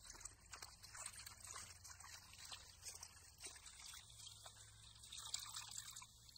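Faint splashing and sloshing of water as a hand swishes and rubs leafy greens around in a steel bowl, washing them.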